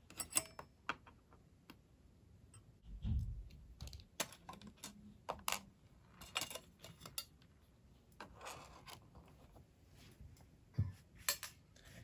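A screwdriver and small metal parts being worked inside an opened iBook clamshell laptop as its RAM shield is unscrewed and lifted off: scattered light clicks and scrapes, with a soft low thump about three seconds in.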